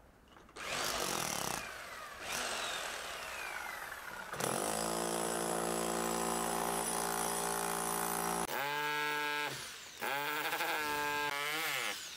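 Hand-held electric power drill working into a soft stone-block wall. It grinds at first, runs at a steady speed for about four seconds, then goes in several short bursts whose pitch sags and climbs as the trigger is eased and pressed.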